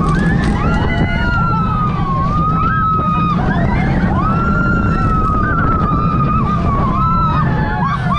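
Gold Rush, a Gerstlauer family mine-train coaster, running along its track: a steady low rumble with wind on the microphone, and long high wavering tones that rise and fall over it.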